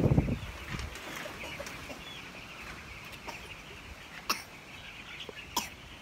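A flock of chicks peeping together in a steady, dense chorus. A low rumble fills the first second, and two sharp clicks come about four and five and a half seconds in.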